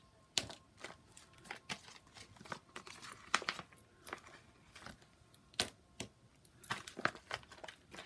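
Craft supplies being handled and rummaged through on a work table: irregular sharp clicks and taps with light rustling, as of markers and paper being picked up and put down.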